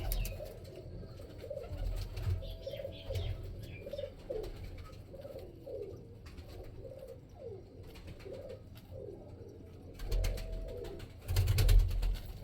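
Domestic pigeon cooing: a long run of short, repeated coos that bend down and up in pitch. Near the end there are a few loud knocks and rustles.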